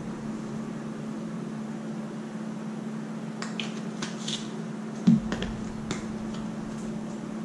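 Small plastic spice-jar caps clicking as the jars are opened and closed, with one louder knock a little after halfway, over a steady low hum.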